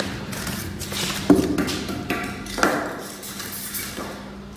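Cardboard packing insert and foam corner pieces being handled and lifted out of a shipping box: rustling and scraping, with a sharp knock about a second in, over a faint steady hum.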